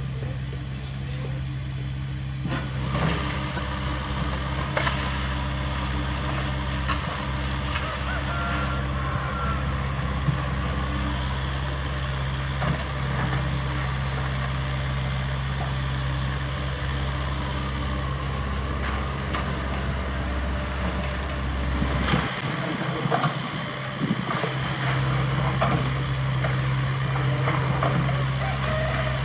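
Caterpillar 307E2 mini excavator's diesel engine running steadily under digging load, with occasional sharp knocks of rocks and soil against the bucket.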